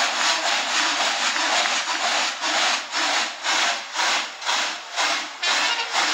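Dozens of large cowbells (tălăngi) strapped to the backs of dancing men, clanging and jangling together. The sound surges about twice a second in time with their jumping steps.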